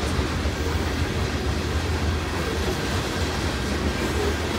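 Freight train of covered grain hopper cars rolling past at speed, a steady rumble of steel wheels on the rails.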